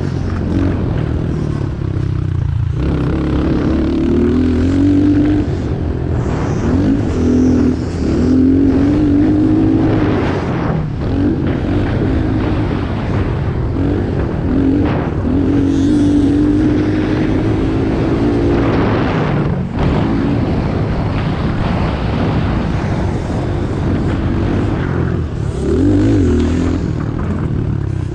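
Stock Honda CRF110F's small 110 cc air-cooled single-cylinder four-stroke engine run hard around a dirt track, its pitch climbing and falling again and again as the throttle is opened and rolled off, with a few sharp drops where the throttle is chopped. Steady wind noise runs under it.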